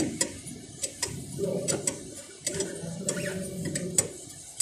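Ratchet wrench clicking in short, uneven runs as a fitting on a forklift's steering column is turned, with light metallic knocks of the tool against the fittings.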